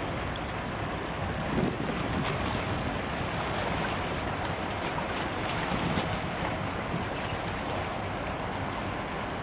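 Steady wind buffeting the microphone over harbour water washing against the breakwater, with the low rumble of a large container ship passing close by.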